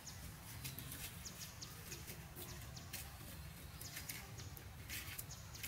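Quiet outdoor ambience: many scattered short, high clicks and chirps over a steady low rumble.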